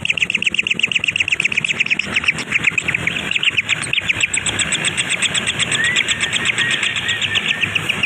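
Young birds chirping rapidly and steadily, about eight to ten short high chirps a second, the begging calls of nestlings being fed.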